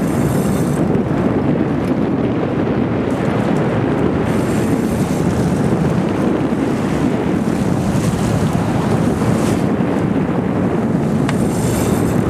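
Steady wind buffeting the microphone over the sea and a sportfishing boat running, a dense rushing noise with a few brief hissy flare-ups.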